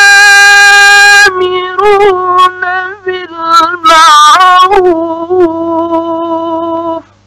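Quran recitation by a male reciter in the melodic mujawwad style: a long, high held note, then ornamented runs. It ends on a held note that cuts off suddenly about seven seconds in, leaving only a low mains hum from the old recording.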